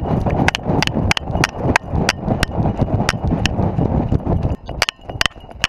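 A dog running with a camera harness on its back: metal gear on its collar or harness jingles in time with its bounds, about twice a second, over a heavy rumble of wind and movement on the microphone. About four and a half seconds in, the rumble drops away while a few more jingles sound.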